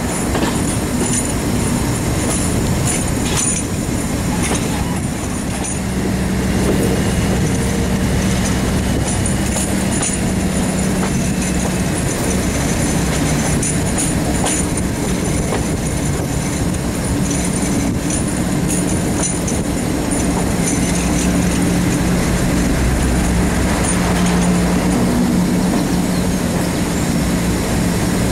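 Diesel locomotive heard from its own cab window while running along the line: the engine works steadily under power, with wheel clicks over the rail joints and rushing air. The engine note grows louder about six seconds in.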